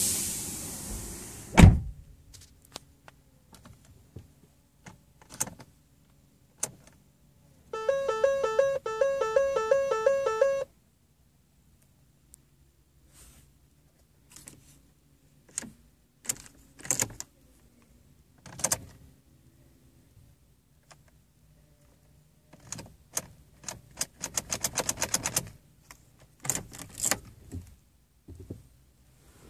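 Ford Focus that will not start: a door shuts with a thunk, a warning chime pulses for about three seconds, then scattered clicks and a fast run of clicking near the end, with no engine catching.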